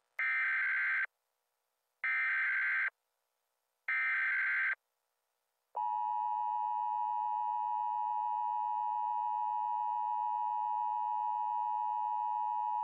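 Emergency Alert System broadcast tones: three short bursts of screeching digital data tones (the SAME header), each about a second long with a second's gap, then from about six seconds in a steady two-tone attention signal.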